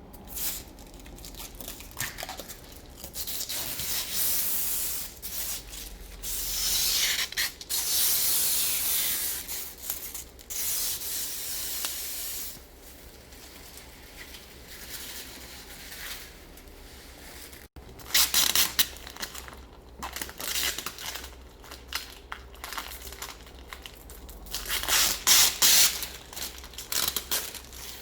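Thin plastic protective film being peeled off steel sheet, a crackling, hissing tearing noise that comes in repeated bursts of a second or few with short pauses between.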